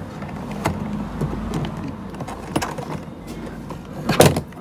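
Hard plastic DUHAN motorcycle top box being handled at its latch and handle: a few light clicks, then a louder clack near the end, over a steady low background hum.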